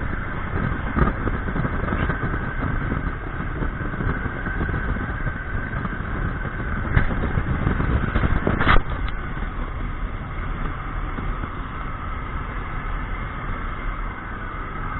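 Motor vehicle running, a steady engine-and-road rumble. It is broken by a few sharp knocks, the loudest just before nine seconds in.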